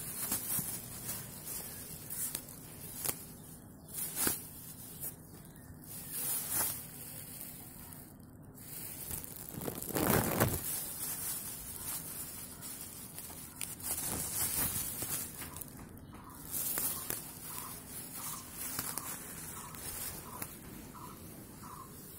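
Clear plastic bag crinkling and rustling in irregular bursts as a cat paws, bites and tugs at it, the loudest rustle about ten seconds in.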